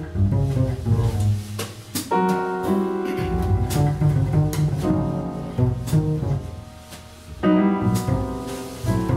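Double bass and piano playing jazz together: plucked bass notes in the low range under piano chords, with a short drop in level about seven seconds in before a loud chord.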